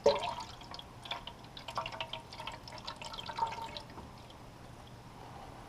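Water being poured into a humidifier's water tank, trickling and splashing in small irregular drips, dying down about four seconds in.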